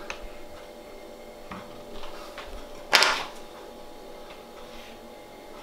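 A few light knocks and handling sounds on a kitchen counter, with one louder clatter about three seconds in.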